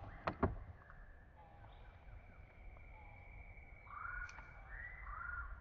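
Birds calling, with a few quick arched chirps near the end and a thin steady high tone through the middle. Two sharp knocks come right at the start.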